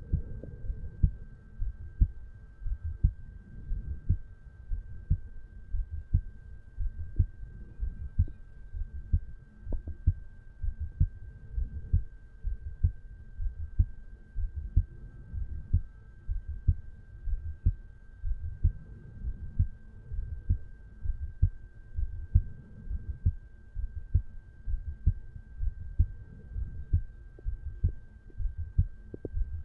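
A resting adult human heartbeat recorded over the mitral valve area: regular low lub-dub beats at about one a second. A faint steady high whine runs underneath.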